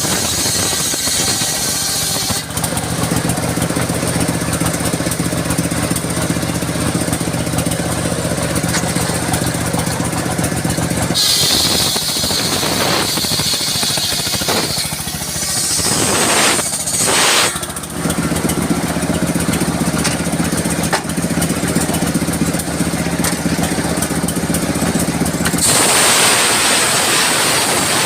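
Power saw cutting acacia wood: a steady running machine with a low hum and a high saw hiss whose sound changes several times, about every six to nine seconds, with a brief dip just before the middle.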